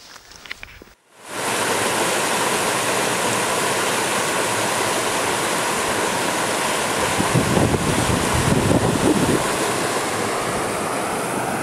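Stream rushing in white water over rock ledges, a steady loud rush that starts suddenly about a second in. Wind buffets the microphone for a couple of seconds in the middle.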